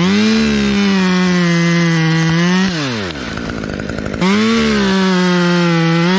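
Two-stroke chainsaw running at full throttle. About halfway through the throttle is let off and the pitch drops to a rough, lower run, then it is revved straight back up to full speed a second later.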